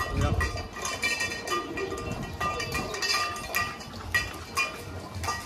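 Several dogs eating from stainless steel bowls: the bowls clink and ring in short, irregular knocks as the dogs nose and push them on the tiled floor.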